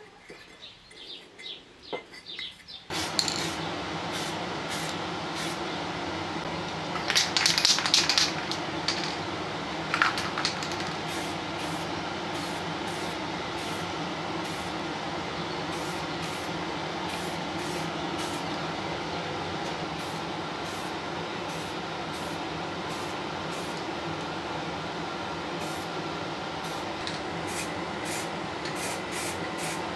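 A few light handling sounds, then about three seconds in paint spraying starts: a steady hiss that runs on evenly, with louder spurts around seven to eight seconds in and again near ten seconds, as small tiller parts are spray-painted.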